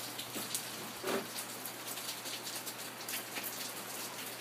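Rain pattering steadily, with water dripping and splashing off the edge of a roof gutter in many separate drops and a heavier splat about a second in.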